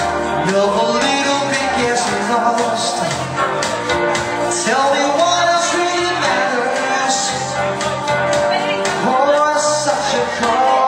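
Live band music with a singer: a sung melody over bass notes and regular cymbal strokes, at a steady loud level in a large room.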